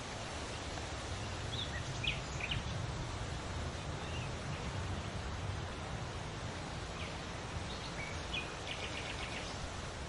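Open-air savanna ambience: a steady hiss with a low rumble, over which small birds give a few short, high chirps, ending in a quick run of chirps near the end.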